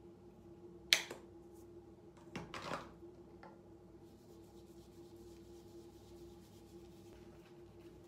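A single sharp plastic click about a second in, as the flip-top cap of a squeeze tube of face cleanser snaps shut, then a short rustle of handling around the two-and-a-half-second mark. A steady low hum runs underneath.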